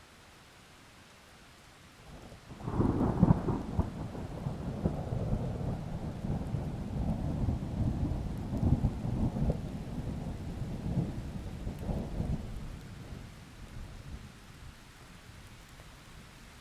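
A roll of thunder over steady rain: it breaks suddenly about two and a half seconds in, rumbles on unevenly for about ten seconds, then fades back to the rain.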